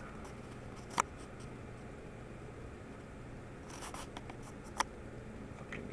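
Camera handling noise while the shot is re-framed and focused: a sharp click about a second in, a cluster of light clicks and rubbing near the middle, and another click about a second later, over a low steady hum.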